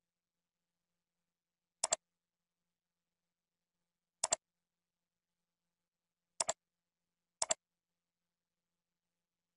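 Computer mouse clicking four times, each click a quick double tick of the button going down and up, the last two about a second apart, with silence between.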